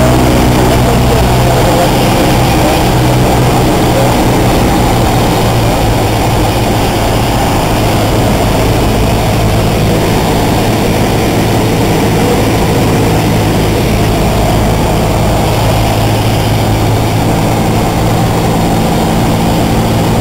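Steady engine and propeller drone of a single-engine high-wing light aircraft in flight, heard loud inside the cabin, with a low hum under a rushing noise.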